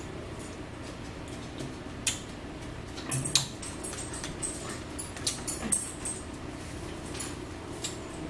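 Table eating sounds: a fork clicking and scraping on a plate, with chewing and mouth noises, as short irregular clicks over a steady low hum.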